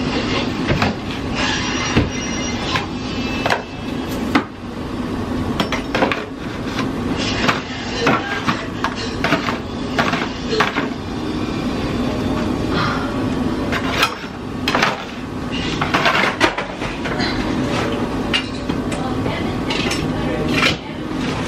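Kitchen clatter: containers and dishes being knocked and clinked as things are moved around in a cupboard, with irregular sharp knocks throughout over a steady low hum.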